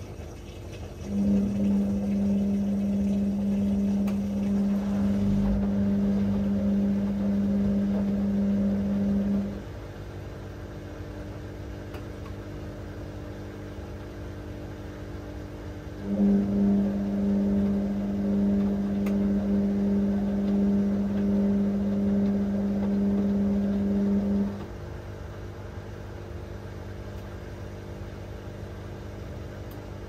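Whirlpool AWM1860 washing machine's motor turning the drum in its drain-and-rinse stage, in bursts. It hums steadily for about eight seconds, stops for about six, then runs again for about eight seconds. A quieter low hum carries on through the pauses.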